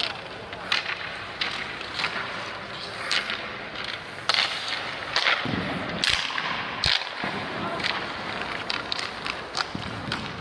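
Ice hockey sticks and pucks clacking on the ice in a string of sharp cracks, with skate blades scraping, and a few duller thumps about five to seven seconds in.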